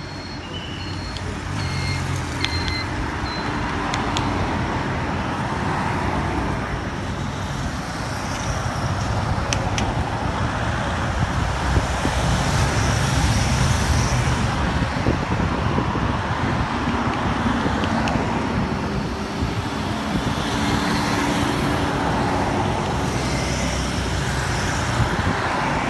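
Motorcade of escort motorcycles and cars driving past one after another, engine and tyre noise swelling to its loudest about halfway through and easing off again.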